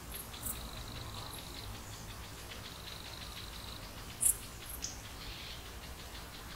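Summer meadow ambience: insects chirring in pulsed runs at a steady high pitch, with a few short, very high bird chirps, the loudest a little past halfway.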